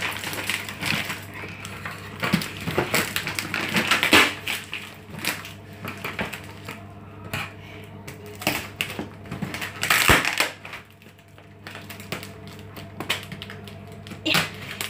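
Brown packing tape being picked at, peeled and torn from a cardboard box, with irregular rips, scrapes and crinkles of tape and cardboard, the loudest about four and ten seconds in. In the second half, scissors cut at the tape.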